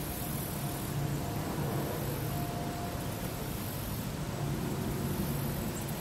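Steady outdoor background rumble and hiss, with a faint low hum that comes and goes.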